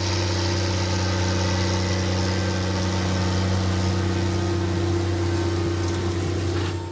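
Large diesel farm-machine engine running steadily with a deep hum, fading out near the end.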